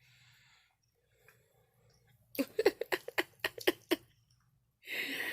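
Chewing steak close to the microphone: about ten quick, loud wet smacks of the mouth over a second and a half, followed near the end by a breathy exhale.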